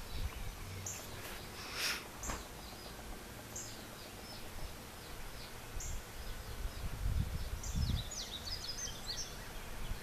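Birds chirping over and over in short high calls, with a steady faint outdoor background. A brief scrape comes about two seconds in, and low rumbles of wind or handling on the microphone come near the end.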